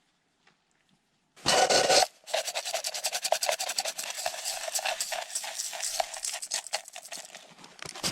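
A spoon scraping out the last of the instant oatmeal from a cup: a loud rustle about a second and a half in, then a long run of quick scrapes with a ringing note that fade toward the end.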